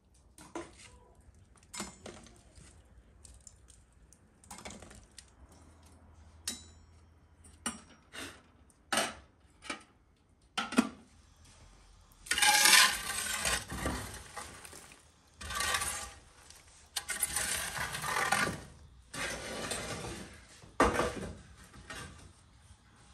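Scattered clinks and knocks, then five or six rough scraping strokes of a long-handled tool raking glowing embers and ash across the brick floor of a wood-fired oven, pushing the embers to the back.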